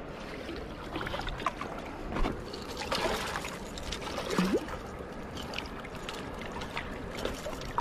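A hooked striped bass splashing and thrashing at the water's surface near the shore, with irregular water sounds and short bursts of noise.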